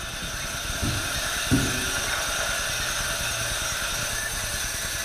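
Old pin-roller leather-measuring machine running with a steady mechanical hum and hiss, while a skin is fed through it; two low thumps come about a second and a second and a half in.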